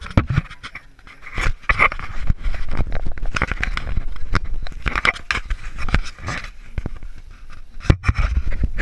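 Camera handling noise: rubbing, scraping and irregular knocks on the microphone as the camera is picked up, swung around and set down again.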